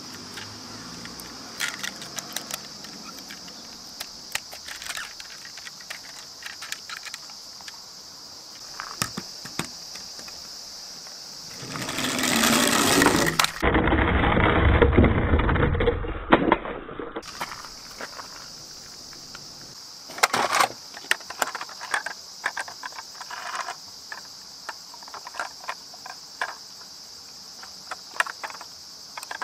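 Plastic toy vehicles clicking and knocking as they are handled and moved about in a cardboard box, over a steady high-pitched background drone. About twelve seconds in, a louder rushing, rumbling noise lasts about five seconds while a toy bus is on a board.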